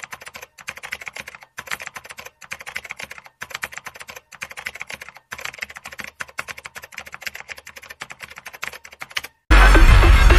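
Typing sound effect: rapid keyboard key clicks in runs with brief pauses. Near the end the clicks stop and loud music cuts in.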